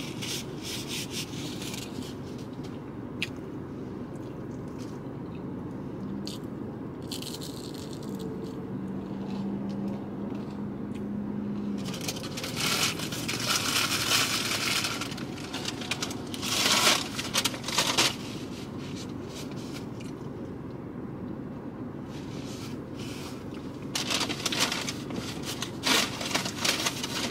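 Steady low hum inside a car, with scraping and rattling handling noises close to the microphone that come in irregular bunches, mostly in the middle and near the end.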